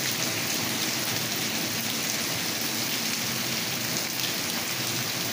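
Heavy rain falling steadily on the ground and on standing water: a dense, even hiss of drops.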